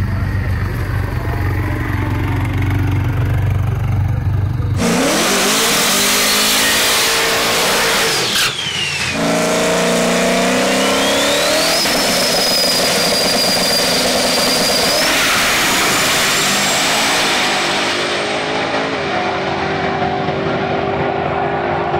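A steady low rumble, then about five seconds in a drag race car's engine at full throttle, revving up through the gears down the strip. A high whine climbs and then holds for a few seconds in the middle.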